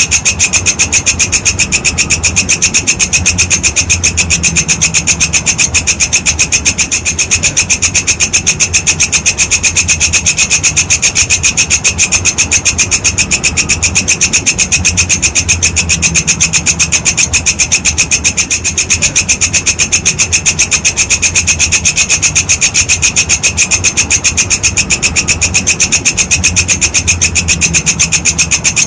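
Walang kecek insect (belalang kecek) calling: a rapid, even, rasping train of pulses, unbroken and high-pitched, over a low background rumble.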